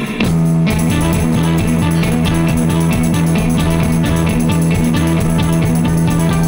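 A surf-punk band playing: Telecaster-style electric guitar and bass guitar over drums, in a steady driving rhythm. Just after the start the full band comes in together, under a held low bass note.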